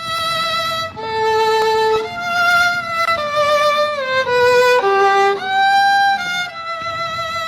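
Music: a solo violin playing a melody of held notes, changing pitch every half second or so, with a few slides between notes.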